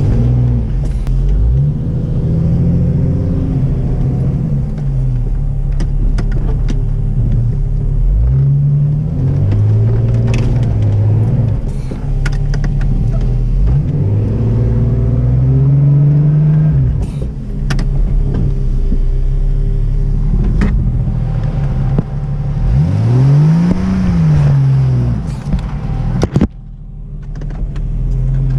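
1991 Jeep Cherokee XJ engine revving up and falling back about four times while the Jeep tries to climb a rutted dirt slope with no traction. Near the end the revs drop away sharply.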